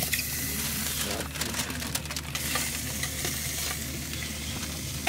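Hot stones sizzling against the meat inside a marinated pig carcass as they are packed into the cavity to cook it from within (boodog). The hiss is steady, with a few sharp clicks scattered through it.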